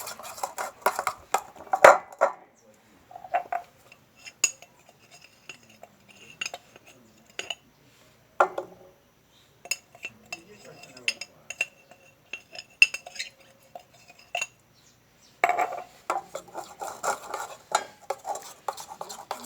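A spoon stirring glue and baking soda in a bowl, scraping and clinking against the bowl's sides. In the middle the stirring thins to separate clinks that ring briefly, then it picks up busily again near the end.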